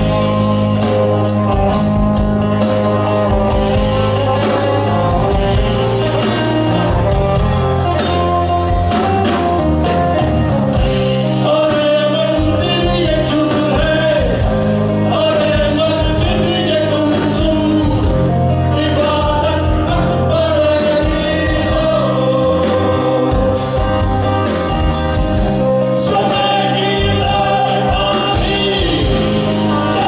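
Rock band playing live and loud: a man sings a wavering melody over bass guitar, acoustic guitar and a drum kit.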